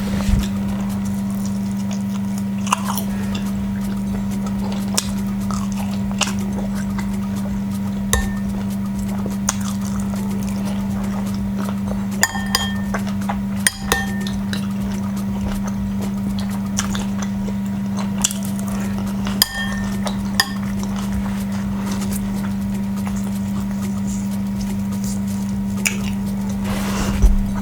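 Eating at a table: scattered short clinks and clicks of dishes and cutlery, with a louder noisy rustle near the end, over a steady low hum.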